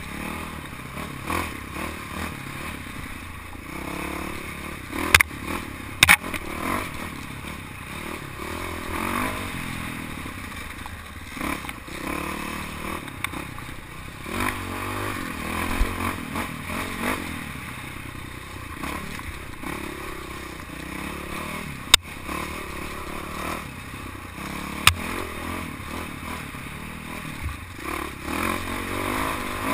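Dirt bike engine running on a forest singletrack, its pitch rising and falling as the throttle is worked, with the clatter and scrape of the bike over rough ground. A few sharp knocks stand out, two about five and six seconds in and two more near twenty-two and twenty-five seconds.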